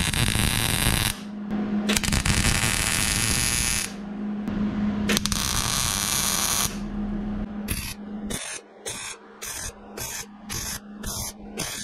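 Wire-feed (MIG) welder arc crackling and hissing as a steel plate is welded onto a car frame rail: three runs of one to two seconds each, then a string of short bursts, two or three a second, near the end. A steady low hum sits underneath.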